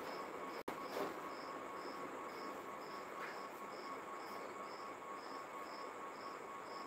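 A cricket chirping steadily, short high chirps about two a second, over faint room hiss.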